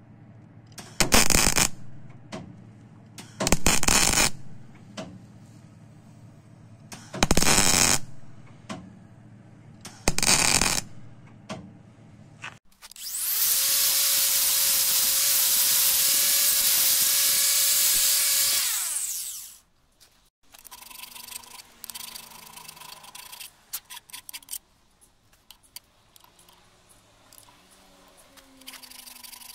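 Four short, loud bursts of harsh tool noise. Then an angle grinder with an abrasive disc spins up, grinds the worn brake-shoe expander cam shaft of a Tunturi Pappa moped for about six seconds with a steady whine, and winds down. Light scraping and handling of the steel shaft follow.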